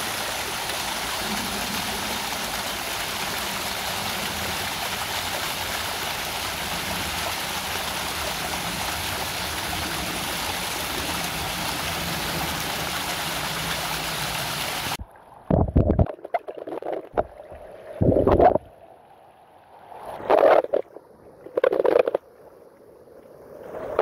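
A small mountain stream cascading down over rocks, a steady rush of water. It cuts off suddenly about fifteen seconds in, and a few short, separate louder sounds follow.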